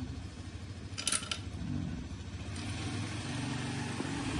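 A small engine running steadily in the background, with a short metallic clink about a second in.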